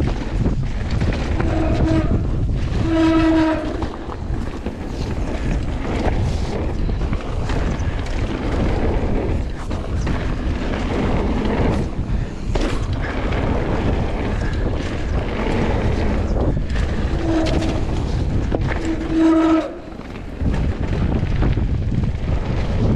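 Mountain bike running down a rough dirt trail: a steady rumble and rattle of tyres and frame, with wind on the microphone. Four short honking tones cut through, two near the start and two near the end, typical of disc brakes howling under braking.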